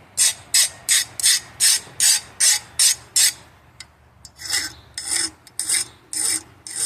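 Quick, even strokes of a hand file scraping across a 5160 steel knife blade, roughly three a second. The strokes pause briefly about halfway through, then start again.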